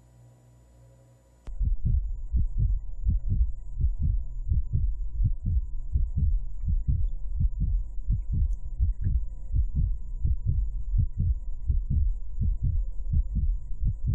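Deep, rapid bass pulsing like a heartbeat, an intro sound bed, cutting in suddenly about a second and a half in after a faint hum and keeping a steady quick beat.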